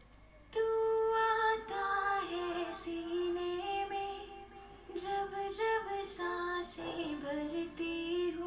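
A mixed lead vocal track of a song playing back: one singing voice carrying a melody, starting about half a second in, with its mixing effects (EQ) switched on.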